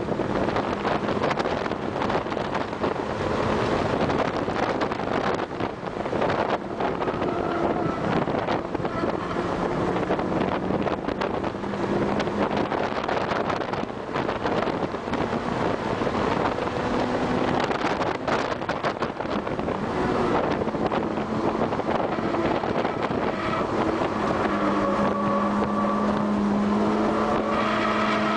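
Car engine running hard at track speed, heard from inside the cabin under heavy wind noise on the microphone. The engine note rises and falls through shifts and corners.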